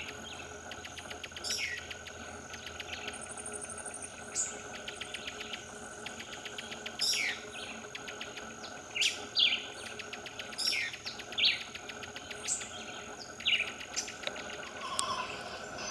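Wild birds calling: a sharp, downward-sliding note is repeated every second or two. Underneath runs a fast, steady ticking trill and a thin high whine.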